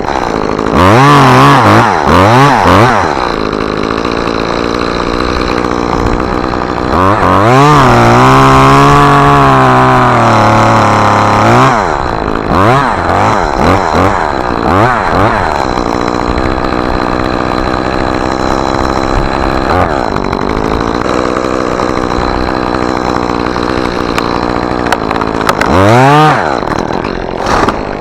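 Two-stroke chainsaw revving up and down in short bursts, with a long full-throttle cut through the wood in the middle and a steadier, lower run after it.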